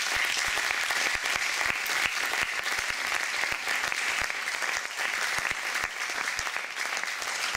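Audience applauding: many people clapping at once at a steady level.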